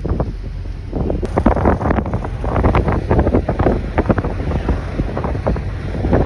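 Wind buffeting the microphone from a moving car, in irregular gusts over a steady low road rumble.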